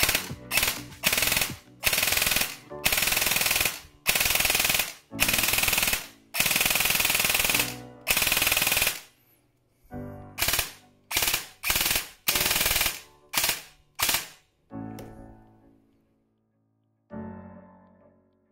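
Newly assembled airsoft AEG Version 2 gearbox test-firing in an M4 lower receiver, working well: the motor and gears cycle in a string of full-auto bursts of up to about a second and a half each, then in a run of short quick bursts. Piano music starts near the end.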